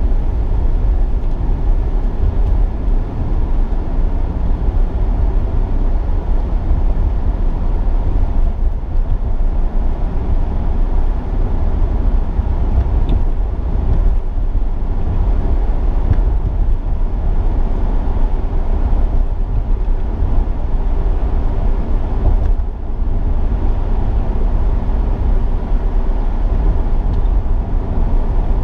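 Steady low road and engine rumble of a Honda Accord driving at cruising speed, heard from inside the cabin.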